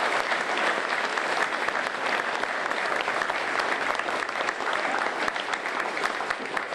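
Audience applauding, steady clapping that begins to thin out near the end.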